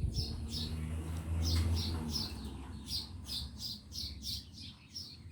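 A small bird chirping over and over in the background, short high chirps at about two to three a second. A low steady hum runs under it through the first half and is the loudest sound there, then fades.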